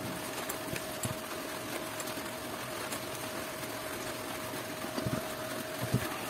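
A steady machine hum with a faint high tone runs underneath. A few light knocks and clicks come from a metal SWR meter box being handled and set down on a radio transceiver, the clearest about five to six seconds in.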